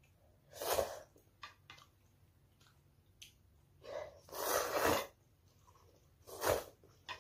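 A child slurping instant ramen noodles: three slurps, the longest and loudest about four seconds in, lasting about a second, with a few light clicks of metal chopsticks against the bowl between them.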